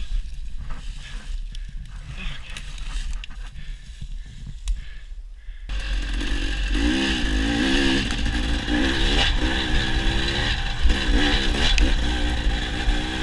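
Dirt bike: a low rumble with scrapes and clatter, then about halfway through the engine sound jumps up suddenly and runs loud, its revs rising and falling as the bike is ridden.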